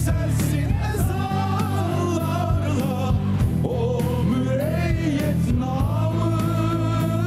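Music with a singing voice over sustained low bass notes.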